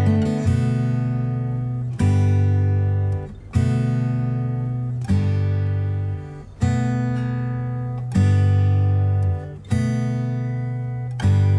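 Background music: strummed acoustic guitar chords, a new chord struck about every second and a half, each one ringing and fading before the next.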